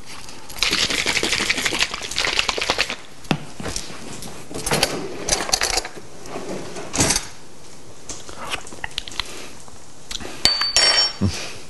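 Plastic squeeze bottle of homemade dressing, capped and shaken hard for about two and a half seconds, a fast rattling slosh, then scattered clicks and knocks as the bottle is handled, with a brief high squeak near the end.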